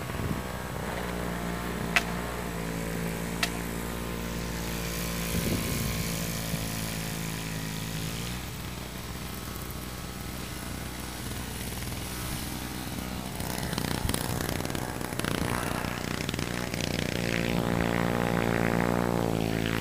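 An engine running steadily, its pitch wavering slightly, fading back and then coming up louder near the end. Two sharp clicks sound near the start.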